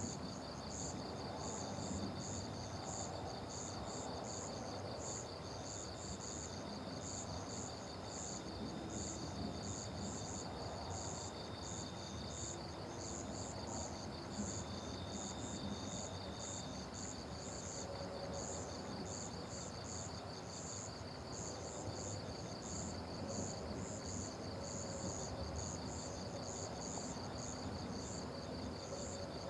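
Crickets and other insects chirping together: a fast, unbroken trill with a higher chirp repeating about twice a second over it.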